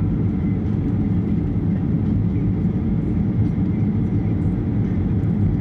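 Steady low rumble of engine and airflow noise heard inside the cabin of a Boeing 737 airliner flying low on final approach, shortly before touchdown.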